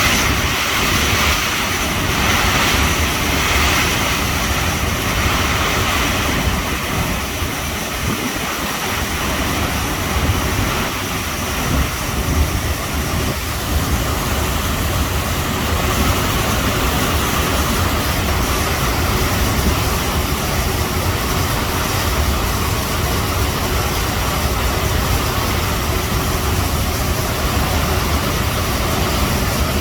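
Swollen river in flood, the water rushing past in a steady roar, with an uneven low rumble of typhoon wind buffeting the microphone.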